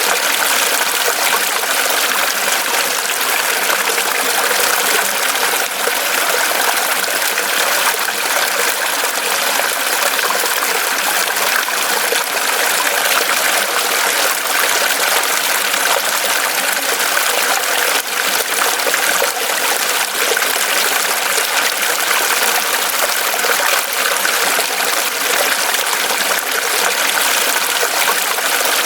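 Mountain stream running steadily over rocks, a continuous even rush and babble of water.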